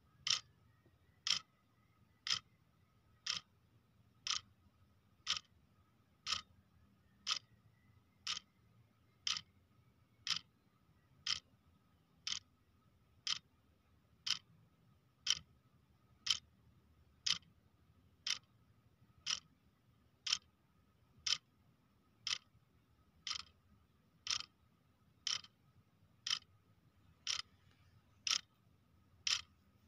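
Clock ticking steadily, one sharp tick per second, with a faint steady high hum underneath.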